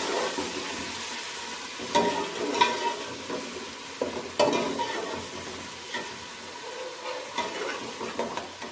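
Browned onions, spices and ginger-garlic paste sizzling in hot oil in a steel pot, stirred with a metal spatula that scrapes and knocks sharply against the pot about five times.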